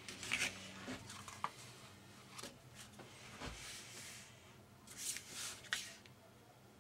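A sheet of card being handled on a cutting mat: irregular rustling, sliding and scraping, with a few light clicks, loudest in the first second and again about five seconds in.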